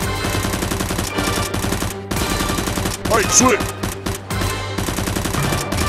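Rapid automatic gunfire sound effects dubbed over Nerf blaster firing, laid over background music, with a brief yell about three seconds in.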